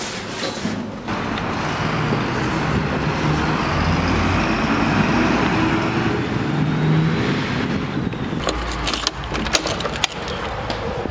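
Street traffic: cars and a truck driving past, their engine and tyre noise swelling and fading. Near the end comes a short run of sharp clicks and rattles.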